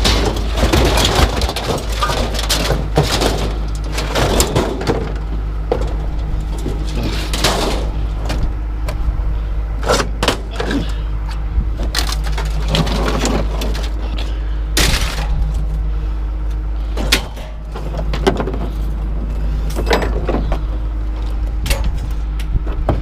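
Scrap metal clanking and banging again and again as it is pulled and tossed off a load, over a steady engine hum.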